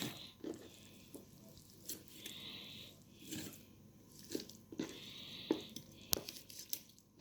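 A knife cutting and crunching through raw chicken joints and bone, with scattered sharp crunches and knocks of the blade. A soft breathing sound close to the microphone recurs about every two and a half seconds.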